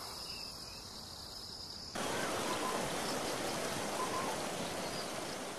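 Steady rushing wash of sea water, a thin hiss that steps up abruptly about two seconds in to a fuller, louder wash.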